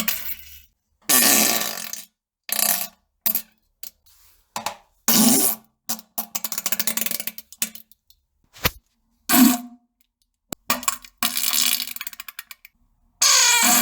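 A string of about a dozen fart sounds separated by short silences: some short blasts, some longer sputtering ones, and a long one starting near the end.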